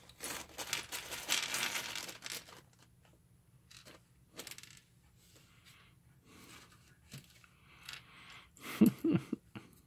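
Small plastic bag of electronic components crinkling as it is worked open, followed by scattered light clicks of tiny parts tipped out onto a wooden workbench. A few sharp, loud taps come near the end.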